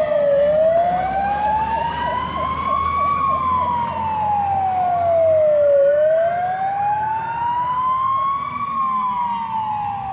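Fire engine sirens wailing, the pitch slowly rising and falling about every five to six seconds, with a second, faster warbling siren in places underneath. Truck engine noise rumbles below.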